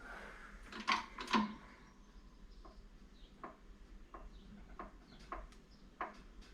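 Faint knocks and clicks from a workshop press forcing a pot-metal wiper switch knob onto a socket. Two sharper knocks come about a second in, then a run of light clicks about two-thirds of a second apart.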